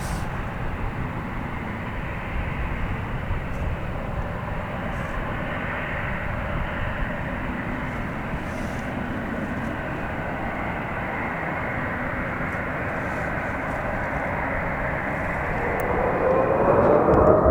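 Boeing 747 jet engines running with a steady rumble and hiss. Near the end a whine rises in pitch and the sound grows louder as the engines spool up.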